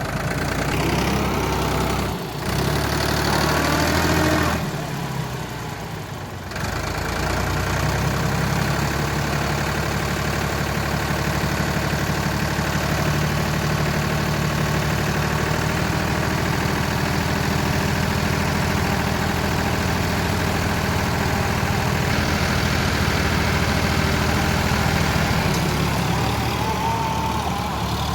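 Diesel engine of heavy farm or earthmoving machinery running steadily. The sound dips and changes about five seconds in, then settles into a long even run.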